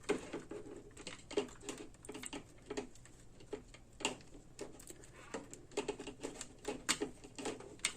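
Irregular light clicks and taps of small plastic parts being handled, as a power strip's switch and housing pieces are worked back together.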